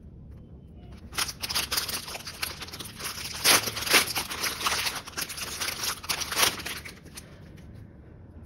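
A thin clear plastic packaging bag crinkling and rustling as a charger cover is unwrapped from it: a dense run of crackles that starts about a second in and dies away about a second before the end.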